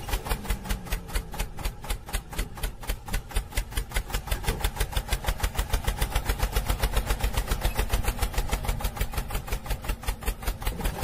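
Tractor engine sound, running at a steady idle with an even, fast putt-putt of about seven beats a second.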